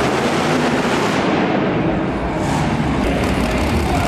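Monster truck engine running loud and steady.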